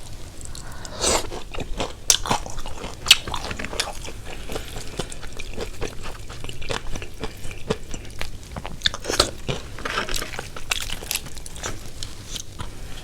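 Close-up eating sounds: crunching bites into crispy fried chicken and chewing, in irregular crackling clusters that are densest near the start and again near the end.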